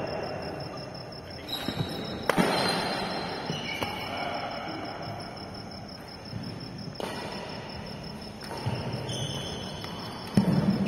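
Badminton rally: sharp smacks of racket strings on the shuttlecock, the loudest about two seconds in, with a louder thump near the end. A steady high pulsing chirp, insect-like, sits behind the play.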